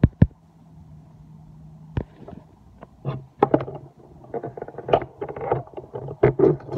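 Irregular light clicks, taps and knocks of small hard parts being handled and fitted: a few at first, then a dense run over the last few seconds. A faint low hum runs underneath.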